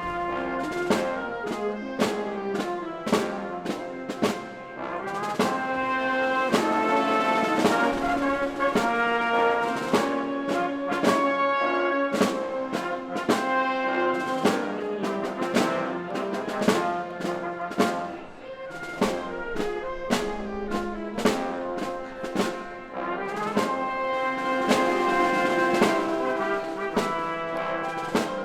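Symphony orchestra playing with the brass section (trombones and trumpets) to the fore over regular percussion strokes, sustained chords moving through the passage without singing.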